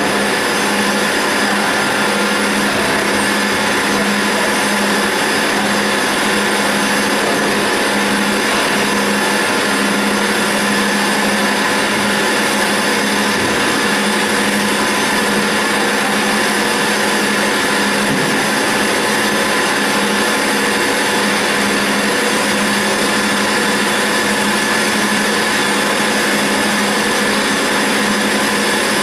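CNC roll turning lathe running while its tool cuts grooves into a metal roll: a steady machine noise with a low hum and a steady high whine.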